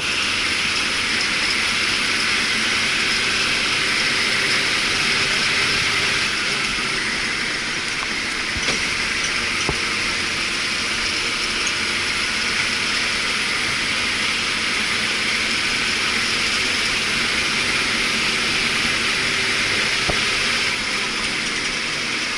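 A train running past: a steady rush of wheel and rail noise with a low engine hum underneath.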